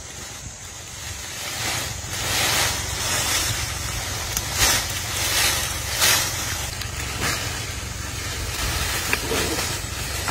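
Steady wind rumble on the microphone, with a run of noisy rustling swishes from about two seconds in to past the middle as a Komodo dragon drags and shakes a wild boar through dry leaf litter.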